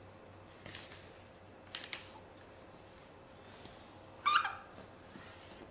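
Sheet of paper being folded and creased by hand on a wooden table: soft rustles and crinkles, with a brief, much louder sound about four seconds in.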